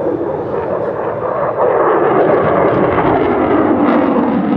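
Jet noise from the F-35A Lightning II's single F135 afterburning turbofan as the fighter flies overhead. It grows louder about a second and a half in, with a falling sweep in pitch.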